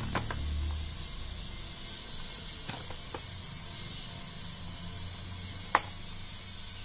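A cardboard paint box being handled and turned over on a table: a low rumble of handling in the first second, then a faint steady hum with a few light taps, the sharpest about three-quarters of the way through.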